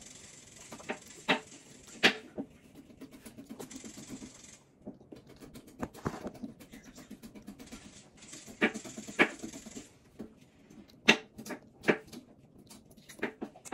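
Wet lip smacks and sucking clicks from a child licking sticky cotton candy off her fingers, a handful of short sharp smacks spaced through, with a faint hiss between them.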